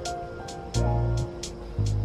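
Background music: held notes over a deep bass line, with a light high percussion tick keeping a steady beat about three times a second; the bass comes in just under a second in.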